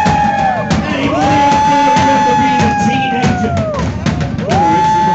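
Live rock and roll band playing: drums with cymbal crashes under two long held high notes, each swooping up at the start and falling away at its end.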